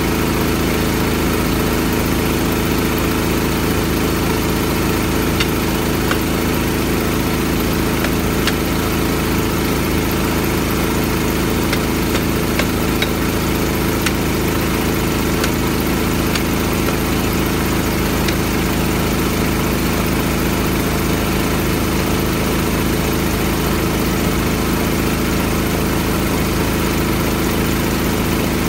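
An engine idling steadily, with a few faint taps of a tire iron on a steel wheel rim.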